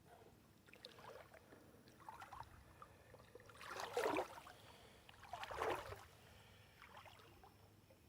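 Shallow river water sloshing and splashing in a series of short swishes, the two loudest about four and five and a half seconds in.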